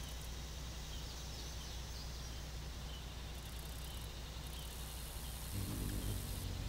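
Steady low hum with faint high insect and bird chirps. About five and a half seconds in, a hummingbird's wings start humming close by as it moves around the feeder.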